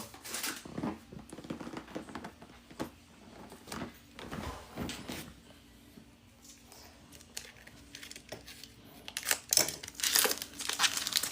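Foil Pokémon booster pack wrappers crinkling and tearing as packs are ripped open, in scattered short crackles that get busier near the end.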